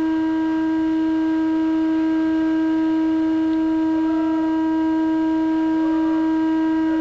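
A single steady held tone with overtones, unchanging in pitch and loudness.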